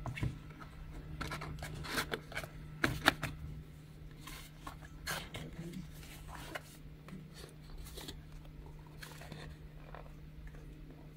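Cardboard packaging being handled: a white box slid out of its cardboard sleeve and opened, with scraping, rustling and sharp taps, loudest about two to three seconds in and quieter after the box is open.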